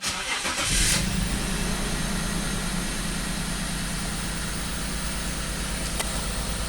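BMW X5 engine cranked by the starter and catching within about a second, then settling into a steady idle. The idle still carries a misfire, a little smoother than before but felt by the owner, from the random misfire the car keeps logging.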